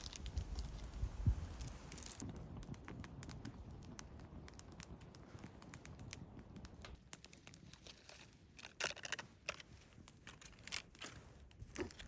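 Small wood fire crackling in a backpacking fire pit, with irregular sharp pops and snaps that come thicker in the second half.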